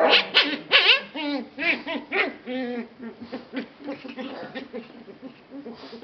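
Four-week-old puppies whimpering and yipping while they wrestle: a quick run of short, wavering high-pitched calls, loudest in the first second and then continuing as softer calls.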